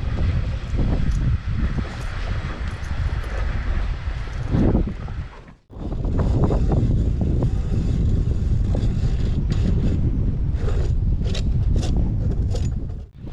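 Strong wind buffeting the microphone: a heavy, continuous low rumble that breaks off briefly about halfway through. A few short, sharp sounds come through near the end.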